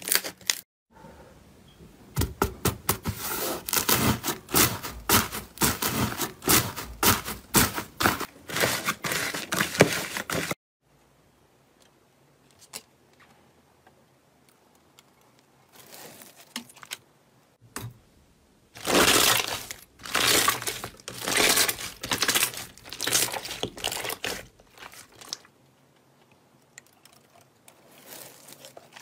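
Slime squeezed and kneaded by hand, giving rapid crackling and popping clicks for about ten seconds before cutting off suddenly. After several quiet seconds with only a few faint clicks, another run of crackling bursts comes as slime is worked against a wire cooling rack.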